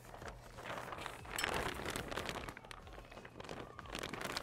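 Heavy 6 mil polyethylene greenhouse film crinkling and rustling as it is gripped and pulled by hand, with a rapid crackle of small snaps, loudest about a second and a half in.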